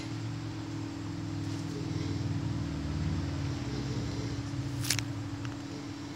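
A low rumble swells and fades over the first four seconds above a steady hum, and a single sharp click comes about five seconds in.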